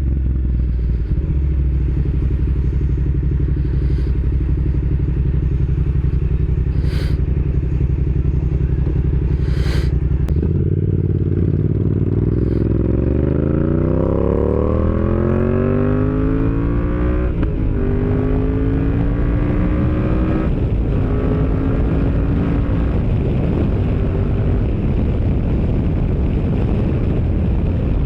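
Yamaha MT-07 parallel-twin engine and exhaust under way: a steady cruise for about ten seconds, then the revs climb in long rising sweeps, broken twice by upshifts. Wind noise takes over near the end as the engine note fades.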